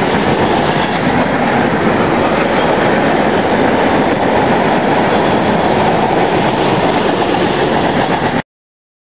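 Freight train of ethanol tank cars rolling past, a steady rumble and rattle of steel wheels on the rails. It cuts off suddenly near the end.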